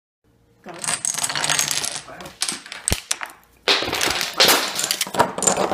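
Dominoes toppling one after another in a chain reaction, a fast clatter of small hard clicks that starts about a second in. It thins out with a single knock just past the middle, then picks up again.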